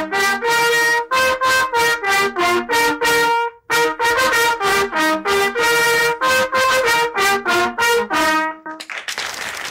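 Trumpet playing a lively tune in short, detached notes, with a brief break about three and a half seconds in. Near the end the tune stops and a wash of noise takes over.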